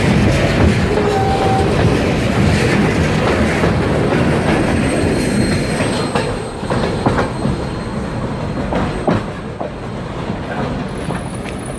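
Freight train cars rolling past, their wheels clicking over the rail joints, with a faint high wheel squeal. The sound eases off about halfway through.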